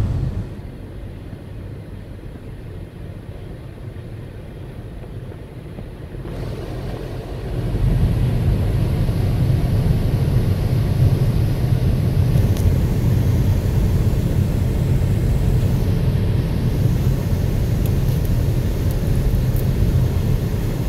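Car cabin noise while driving on a wet road: a steady low rumble of engine and tyres that is quieter at first and grows louder from about seven seconds in.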